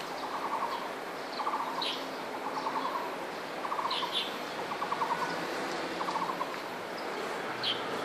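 Taiwan barbet calling: a run of rapid low knocking notes, repeated about once a second, seven times. A few brief high chirps come in between.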